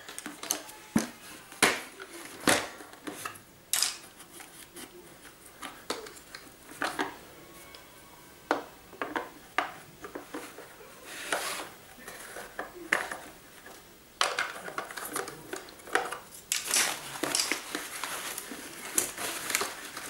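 Irregular plastic clicks, knocks and clatter as a Eufy robot vacuum is handled upside down and its roller brush is worked back into the underside.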